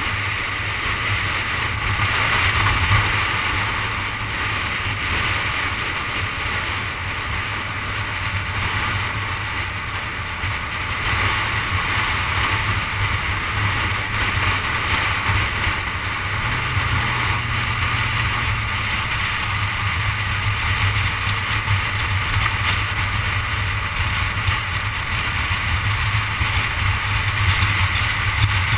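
A car driving at speed along a highway: steady tyre and wind noise over a low hum.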